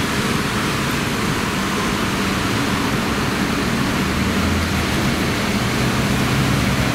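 Steady city street traffic noise, an even rush with a low engine hum underneath.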